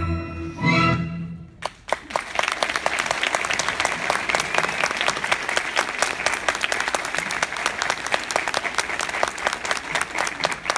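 Recorded orchestral ballet music ends on a final held chord, and about two seconds in an audience breaks into steady applause, with a few single claps standing out louder than the rest.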